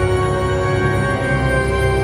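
Background music with long held tones at a steady level.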